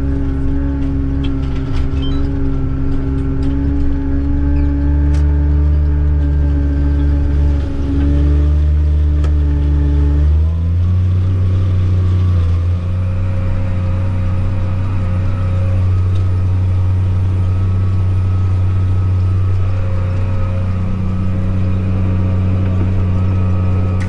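Case IH tractor's diesel engine running steadily under load while pulling a disk through corn stalks, its tone shifting about ten seconds in, then holding steady.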